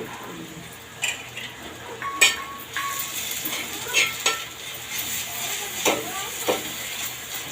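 Crushed ginger and jaggery sizzling in ghee on a tawa, stirred with a spatula that scrapes and knocks against the pan about half a dozen times.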